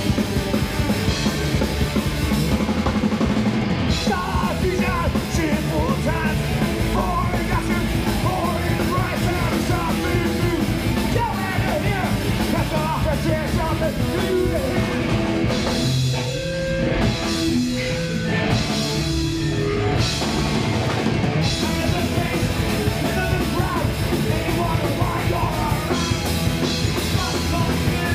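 Punk rock band playing live: electric guitars, bass guitar and drum kit. Just past the middle the drums thin out for a few seconds while the guitars keep playing, then the full band comes back in.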